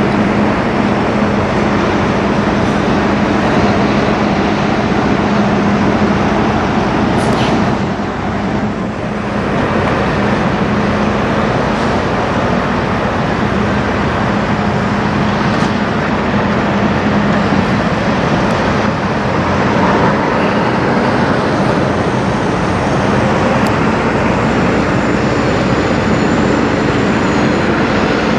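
Semi-truck diesel engines running as tractor-trailers pull slowly past one after another, with a steady low engine drone throughout and a brief drop in level about eight seconds in.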